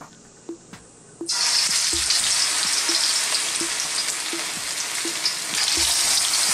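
Marinated chicken wings going into hot oil in a wok: a loud frying sizzle starts suddenly about a second in and carries on steadily.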